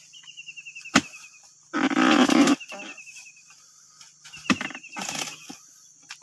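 Oil palm harvesting chisel on a long pole striking the stalk of a fruit bunch: two sharp chops about three and a half seconds apart. Between them comes a loud sound lasting almost a second. A high trill repeats a few times in the background.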